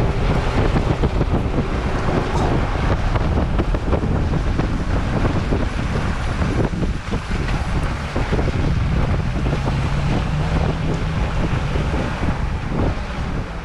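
Wind buffeting the microphone: a loud, uneven rumble with gusts.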